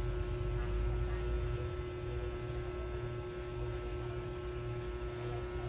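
Steady electrical hum: one constant mid-pitched tone over a low rumble, the rumble easing a little about a second and a half in.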